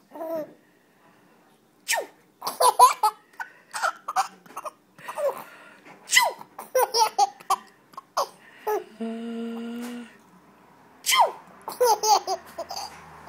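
A woman sneezing three times, each sneeze followed by a baby's giggles and laughter. A long held vocal note comes shortly before the last sneeze.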